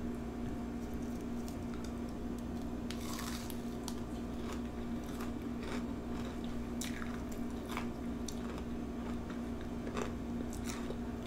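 Biting into and chewing a Hot Cheeto–crusted fried pickle: crisp crunches begin about three seconds in and recur through the chewing, over a steady low hum.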